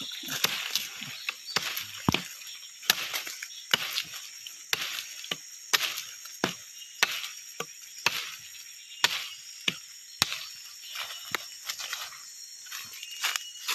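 Footsteps crunching through dry leaf litter and snapping small twigs, roughly a step or two a second, over a faint steady high-pitched insect buzz.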